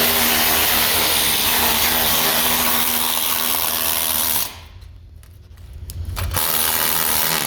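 Power tool running with a steady whine. It cuts off sharply about four and a half seconds in and starts again about two seconds later.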